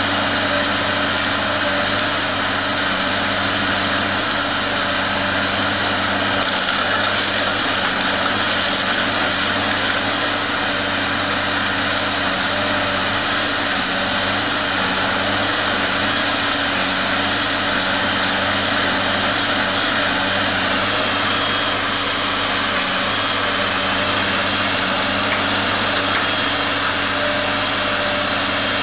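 Timberjack 1270D forestry harvester's diesel engine running steadily: a constant drone with a dense high hiss over it.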